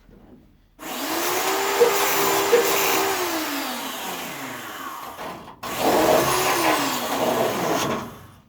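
Electric grinder used twice on the car's floor metal. It spins up, runs steadily for a couple of seconds and winds down, then a second, shorter burst spins up and winds down again near the end.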